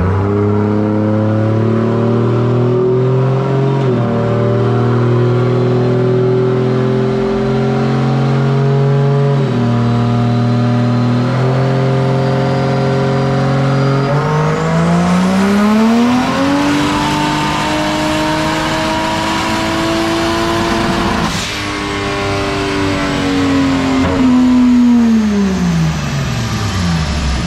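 Turbocharged 2JZ inline-six in a Toyota 4Runner running on a chassis dyno: it holds steady revs with a few small steps in pitch, then from about 14 seconds in the revs climb hard in a full-power pull with a high whine rising alongside. The pull breaks off suddenly about 21 seconds in and the revs wind down near the end; this run made just over 600 hp at the tires.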